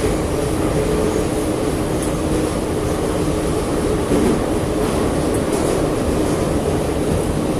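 Saint Petersburg metro train running, heard from inside the carriage: a steady, loud rumble of wheels and running gear with a faint steady hum.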